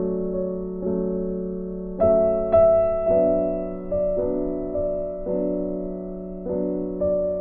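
Background music: soft piano chords struck about once a second, each ringing and fading.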